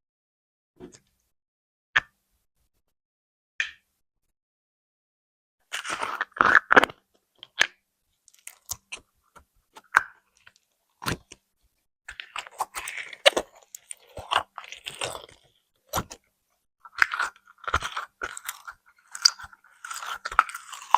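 Slime being handled: three separate sharp taps, then from about six seconds in dense, irregular crackling and popping.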